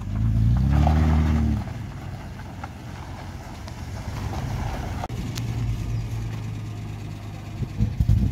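Holden VL Commodore engine revved once, its pitch rising and falling over about a second and a half, then running steadily at a lower level. It sounds like it is missing a little, which the owner suspects is a misfire.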